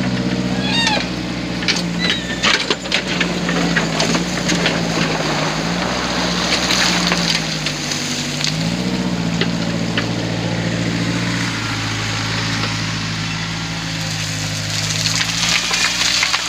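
Backhoe's diesel engine running under load, its pitch dipping and rising as it works, with knocks and scraping from the bucket digging sand in the first few seconds.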